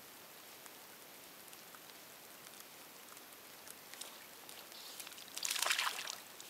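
Steady patter of light rain with scattered drips. About five seconds in, a hiss of about a second, the loudest thing here, as the fly line tears off the water's surface and swishes into a cast.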